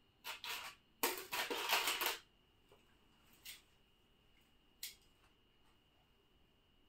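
Rustling and crackling handling noise as hair is worked and pinned into a bun: a short burst, then a longer one of about a second, followed by two light clicks.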